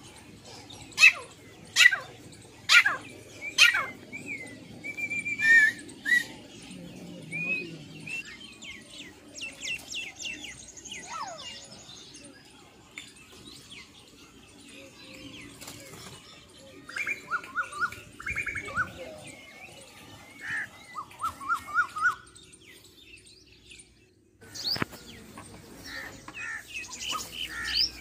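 Several kinds of captive farm birds calling together: a few loud sharp calls at the start, then whistled notes and short trills. After a brief gap near the end come rapid high-pitched chirps.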